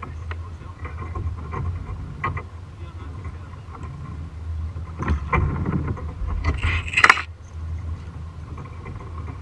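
Water lapping against a plastic kayak hull under a low rumble of wind on the microphone, with scattered small knocks. About six and a half seconds in there is a brief, loud rush of noise.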